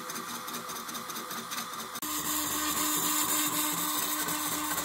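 Stepper motors of a homemade CNC laser engraver driving the laser head back and forth in rapid raster passes: a whining hum with a regular pulsing rhythm. It gets louder and steadier about two seconds in.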